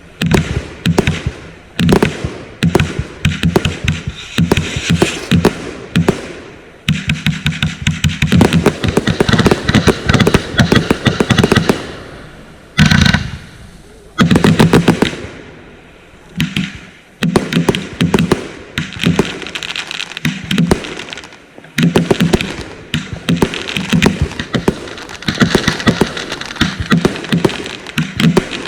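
Consumer firework cakes firing rapid volleys of sharp reports and bursts, in runs of several seconds with short lulls between them.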